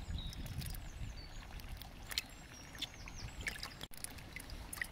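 Water splashing and dripping as a small carp is handled in wet hands over a bucket of water, against a steady low wind rumble, with a few faint bird chirps.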